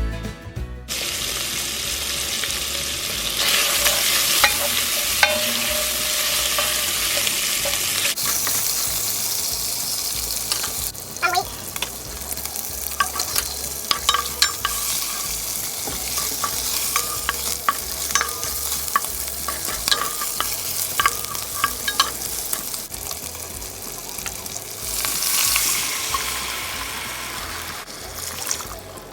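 Food sizzling in a frying pan, with a utensil stirring and knocking against the pan. The sizzle swells louder a few seconds in and again near the end, and the clicks of the utensil come thickest through the middle.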